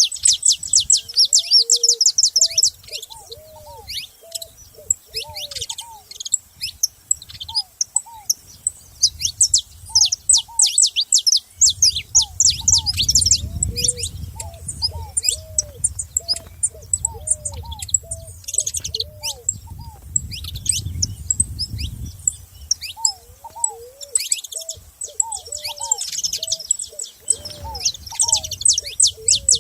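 Saffron finches chirping and twittering in fast, dense runs of high notes, with a lower call of short, arched notes repeated underneath.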